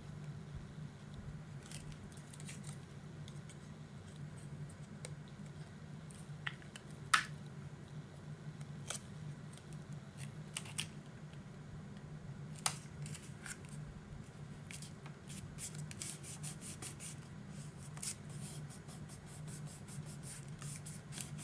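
Paper being handled and pressed down by hand: scattered light crackles and clicks, two sharper taps about seven and thirteen seconds in, and quicker rustling crackles in the last few seconds, over a low steady hum.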